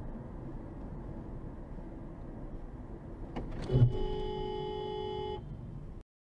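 Steady road and engine noise inside a moving car. Just under four seconds in comes a short loud thump, then a car horn held steadily for about a second and a half as a warning to a car cutting across in front.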